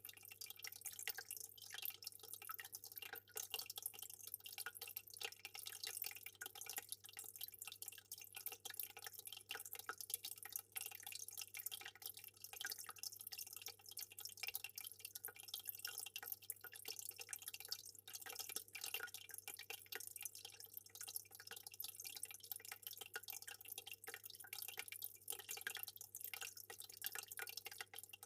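Aquarium water trickling and dripping: a continuous stream of many small splashes, over a faint steady low hum.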